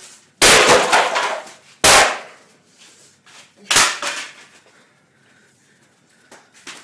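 Three loud, sharp bangs of something being struck hard, each ringing briefly, about one and a half to two seconds apart. A couple of fainter knocks follow near the end.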